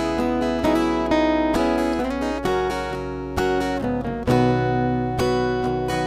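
Background music: acoustic guitar playing chords, struck about twice a second at an unhurried pace.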